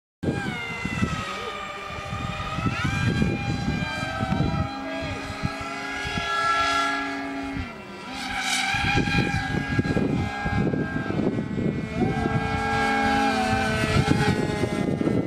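The electric motors and propellers of a homemade three-ducted-fan RC plane whine, their pitch rising and falling with throttle as it takes off and climbs. There is a dip about eight seconds in, and heavy rumbling wind on the microphone throughout.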